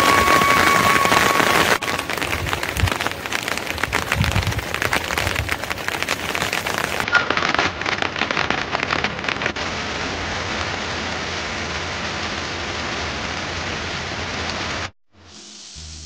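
Steady rain falling: a hiss with a dense patter of drops through the middle. A thin steady whistle sounds over it for the first second or two, and the rain cuts off suddenly near the end.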